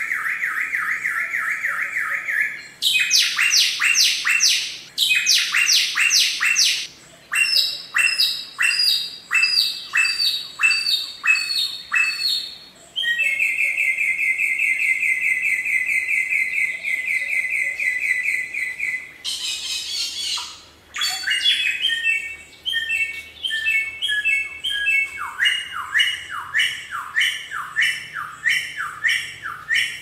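Samyong songbird singing loudly and at length. It runs through a fast trill, a series of sharp down-slurred notes about two a second, a long even trill held for about six seconds mid-way, and more runs of falling notes.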